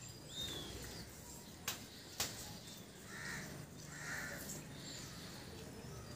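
Faint birds calling outdoors: a short falling whistled call just after the start, then two short calls about three and four seconds in. Two sharp clicks come between them.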